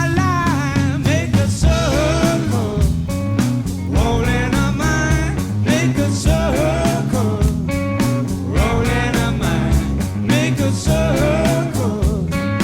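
Rock band music without sung words: a steady drum beat, a stepping bass line and a bending guitar lead.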